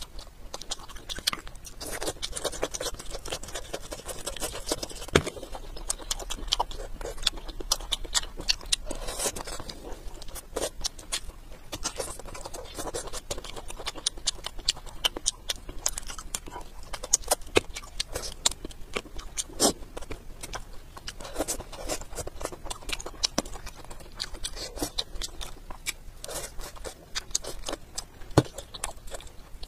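A person chewing and eating fried fish, a steady run of small wet mouth clicks and smacks with no pause.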